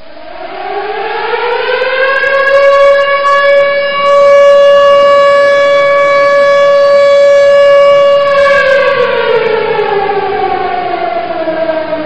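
Siren winding up to a steady wailing note, holding it for about six seconds, then winding slowly down in pitch. It gets louder about four seconds in.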